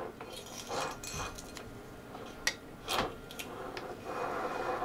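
Handling noise as an inspection camera on its cable is worked inside an aluminium SCBA air tank: soft scraping and rubbing with a few light clicks, the sharpest about two and a half and three seconds in.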